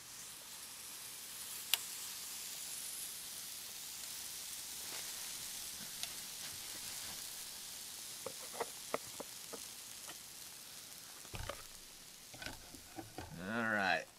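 Waffle batter sizzling with a steady hiss as it is poured onto the hot plates of an electric flip waffle maker, with a few small ticks. Near the end, a brief, louder squeak with a wavering pitch as the lid is swung shut.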